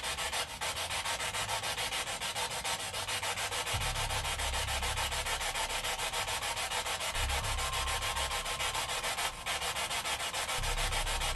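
Handheld spirit box (ghost box) running: a radio sweeping across stations, giving a steady static hiss chopped into rapid, even pulses. A low rumble comes and goes underneath.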